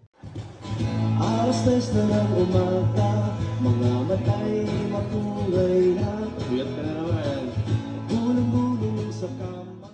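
A singer performing live while strumming an acoustic guitar, the voice carrying a melody through a microphone and PA.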